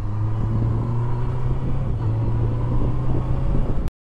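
Honda motorcycle engine running at steady revs with a low, even note as the bike rides along. The sound cuts off abruptly near the end.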